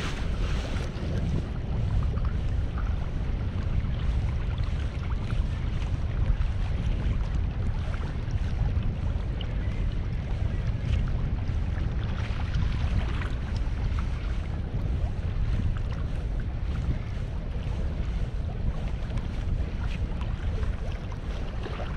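Wind rumbling steadily on the microphone, with choppy lake water washing against the pier wall underneath.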